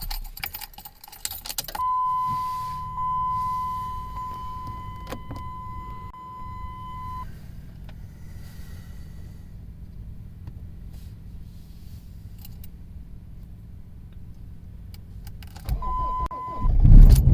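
Keys jangle in the ignition of a 2006 Jeep Liberty CRD, then a steady electronic warning tone sounds for about five seconds over a low hum. Near the end the 2.8-litre four-cylinder turbodiesel cranks over suddenly and loudly on a cold start, its exhaust running without a muffler.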